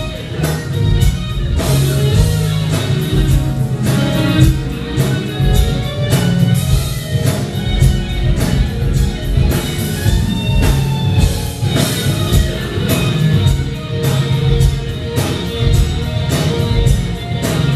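Dance music with a steady beat.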